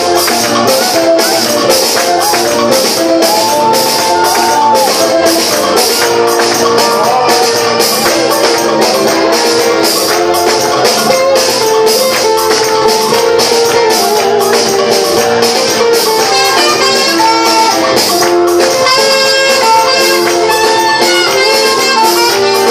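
Live band music played loud: a steady tambourine-like beat of about two strikes a second under a melody of held notes.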